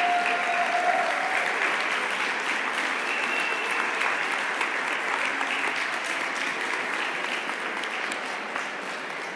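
Audience applauding steadily, strongest about a second in and slowly tapering off toward the end.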